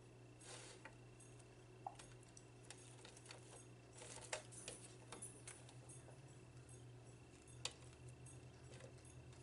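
A person eating close to the microphone: soft chewing and mouth clicks with a few sharper clicks and small crackles, over a low steady hum.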